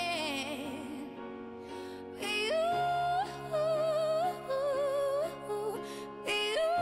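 Background music: a song with a singer holding long notes with vibrato over sustained accompaniment chords.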